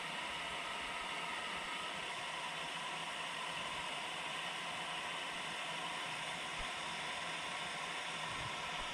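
Water spilling over a low concrete river weir, a steady rushing hiss with no breaks.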